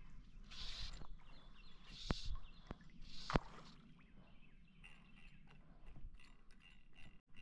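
Fly line swishing through the air during false casts: three short hissing swooshes, each with a sharp snap, about a second and a half apart.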